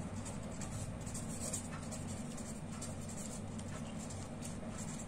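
Felt-tip pen writing on paper: a run of faint, quick, irregular strokes over a low steady hum.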